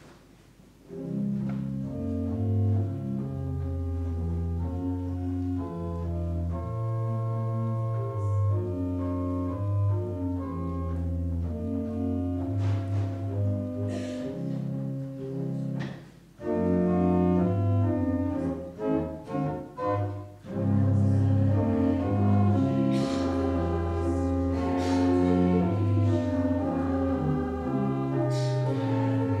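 Organ music, slow held chords over a deep bass line, starting about a second in. It breaks off briefly about sixteen seconds in and is broken up for a few seconds before returning full.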